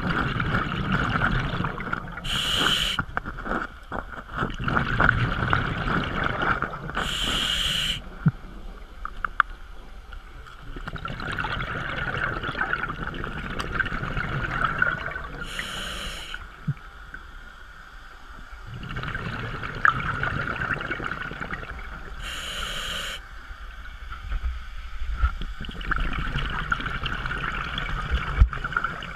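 Scuba diver breathing underwater through a regulator, heard through the camera housing: four short hissing inhalations, roughly seven seconds apart, each followed by a long stretch of rumbling, crackling exhaust bubbles.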